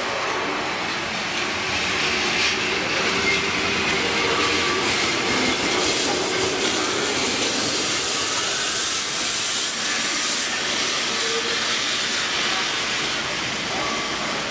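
Remodelado tramcar running on its street rails: a steady rumble of wheels on the track.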